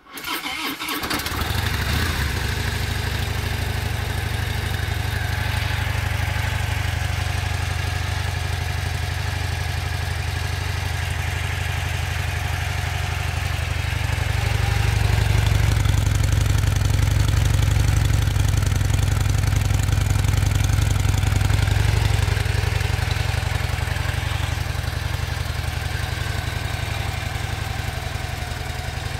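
2014 Harley-Davidson Fat Bob's Twin Cam V-twin starting up and idling through its standard factory exhaust cans, a deep, steady idle. It gets a little louder for several seconds midway, then settles back.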